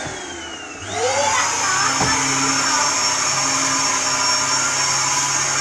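Household vacuum cleaner running with a steady high whine. In the first second its whine falls in pitch and the sound drops a little, then it picks up again and runs steadily.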